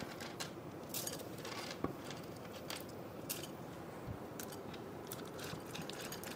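Light, scattered clicks and ticks of semi-sweet chocolate chips being gathered by hand off a wooden countertop and dropped into a bowl, with a spatula starting to stir the bowl near the end.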